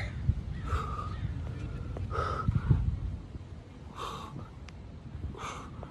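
A man breathing hard while doing burpees: a sharp, forceful exhale about every second and a half, with a few dull thumps from the body landing on the ground.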